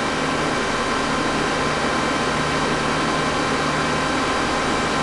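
Tsugami PL3 CNC gang tool lathe running with a steady hum and whine holding several fixed pitches, as its X axis is driven back to its zero (home) position.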